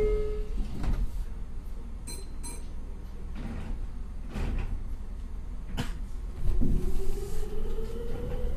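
Meitetsu 3100-series electric train at a station stop: a few door knocks and clunks as the doors shut, then about six and a half seconds in the traction motors start a whine that rises steadily in pitch as the train pulls away.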